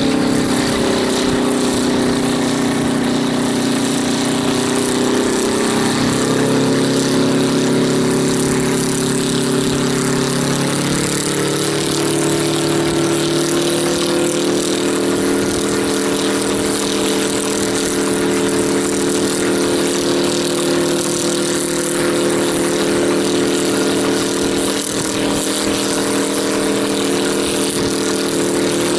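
Engine of a homemade helicopter running steadily. Its pitch shifts a few times during the first dozen seconds, then it holds an even speed.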